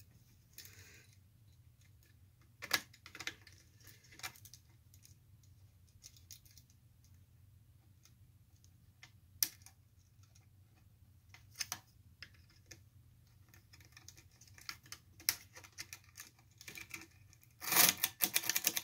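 Hand tools working on a metal lamp socket clamped in a wooden jig: scattered small clicks and scrapes of a blade and then a screwdriver against the socket's metal parts, with a louder run of rapid scraping and tapping near the end. A steady low hum lies under it all.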